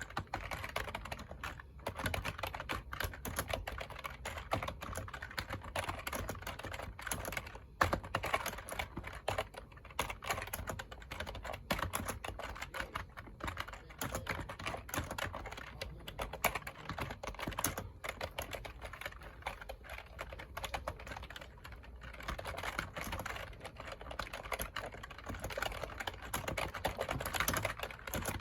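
Typing on a computer keyboard: a fast, steady run of key clicks with short pauses between bursts.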